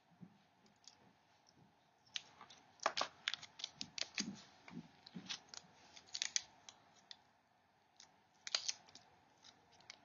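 Scissors snipping clear tape and the tape being handled on a small plastic charger cube: an irregular run of sharp clicks and crackles, busiest from about three to six and a half seconds in, with another short cluster near the end.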